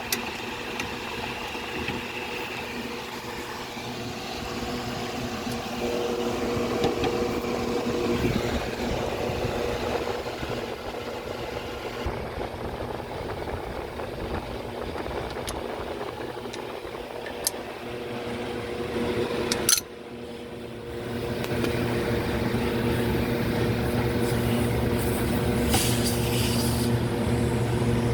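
Steady mechanical hum of running machinery with a few sharp metallic clicks, as an orifice is worked out of a refrigeration expansion valve. About two-thirds of the way through, a loud click comes and the hum drops away for about a second before building back up.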